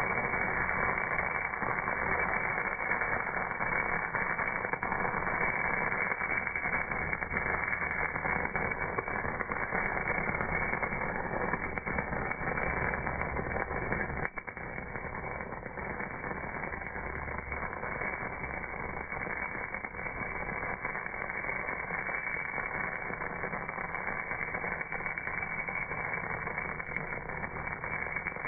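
MAG welding arc on cast metal, giving a steady, dense crackling hiss that sounds dull, with no treble. The level briefly drops about halfway through.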